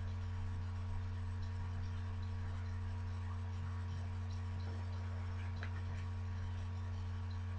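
Steady low electrical hum with a few faint clicks, the loudest cluster about five and a half seconds in.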